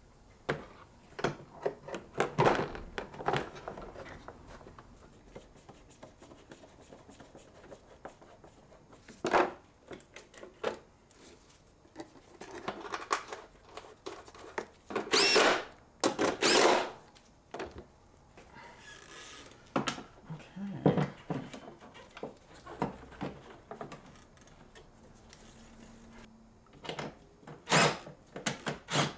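A plastic air filter housing being handled and fitted back into a car's engine bay: scattered knocks, clicks and rattles of plastic parts, with two louder scraping noises about halfway through.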